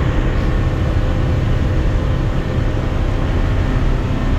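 Boat under way: its engine running steadily with water noise along the hull, a constant low drone heard from inside the enclosed cabin.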